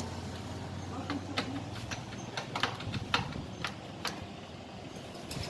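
Sharp metallic clicks and knocks, about a dozen irregular strikes, as hand tools and small metal engine parts are handled during work on a motorcycle engine, over a faint low hum.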